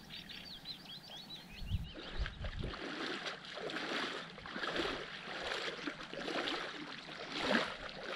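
A person swimming, water splashing in a steady rhythm of strokes about twice a second. Faint bird chirps are heard in the first couple of seconds.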